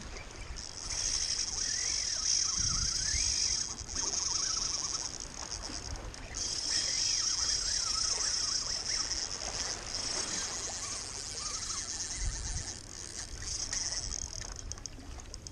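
Spinning reel's drag buzzing as a hooked false albacore runs and strips line, in long runs broken by short pauses.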